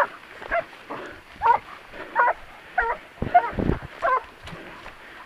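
Hunting dog on a long tracking lead giving a string of short, high yelping whines with wavering pitch, about one every half second to second. It is excited on the scent of a wild boar's trail. A low thud sounds about midway through.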